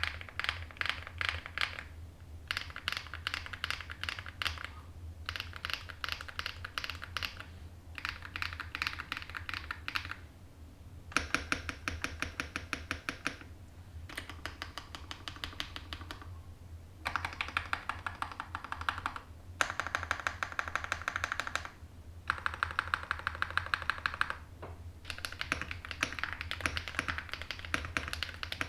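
Typing on a zoomTKL Sky Blue custom mechanical keyboard with an aluminium plate, stock Akko Snow Blue Grey switches and Osume Winterglow Eve keycaps. Quick runs of keystrokes come in bursts of a second or two, each followed by a short pause.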